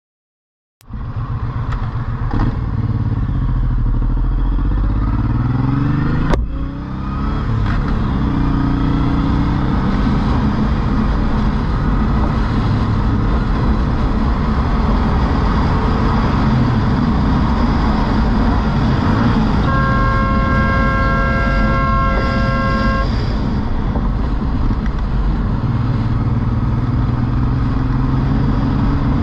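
Cruiser motorcycle riding at highway speed, engine and wind noise loud and steady, its pitch rising and falling in the first few seconds as it speeds up; it cuts in after a moment of silence. A vehicle horn blares as one held, multi-tone note for about three seconds, about twenty seconds in.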